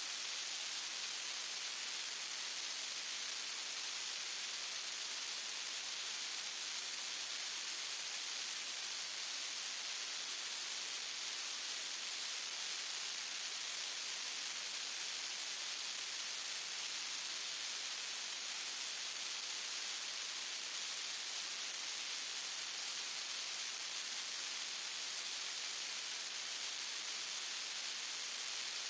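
Steady, unchanging hiss like static or white noise, strongest in the highest pitches.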